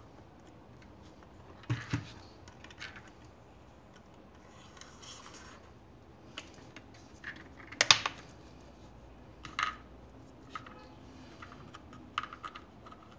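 Hands handling a wood-cased tabletop radio: scattered clicks, knocks and rubbing on the cabinet and its antenna and knob, the loudest knock about eight seconds in.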